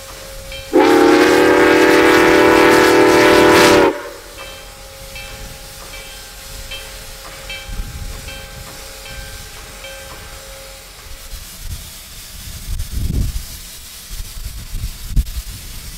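Steam whistle of 2-8-2 Mikado steam locomotive #4960 sounding one long, loud blast of about three seconds, several tones at once. Afterwards the standing engine hisses steam with a faint regular ticking, and a couple of dull thumps come near the end.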